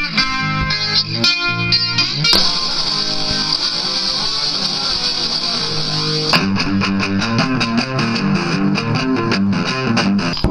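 Guitar music: picked notes, then a held, ringing passage from about two seconds in to about six, then a fast run of picked notes that breaks off abruptly at the end.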